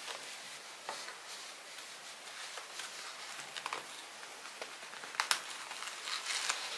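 Soft rustling and handling noises of a cardboard tissue box settled inside a shaggy plush tissue cover as it is pressed and then lifted, with a few light clicks and one sharper tap late on.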